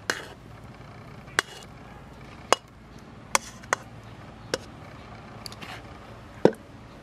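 Metal spatula knocking and scraping against a metal karahi and a stainless-steel bowl as cooked semolina dough is scraped out: about seven sharp clinks spaced roughly a second apart, with light scraping between them.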